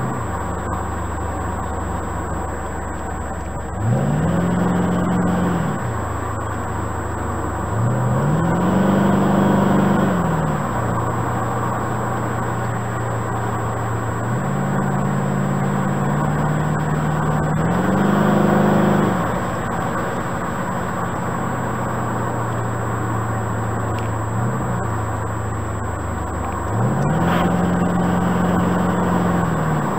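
1969 Corvette C3 Stingray's V8 engine running under way with road noise, its revs rising and falling about four times as the car accelerates and lets off, louder during each pull.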